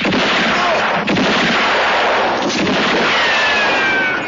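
A gunfire sound effect: a dense, loud, unbroken barrage of shots and blasts running at an even level. Near the end come two faint falling whistling tones.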